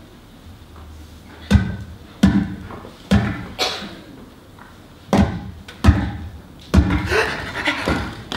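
A table top struck hard in about seven sharp, separate slams at an uneven, dramatic spacing, each ringing briefly, as table percussion; near the end the hits run into a busier flurry.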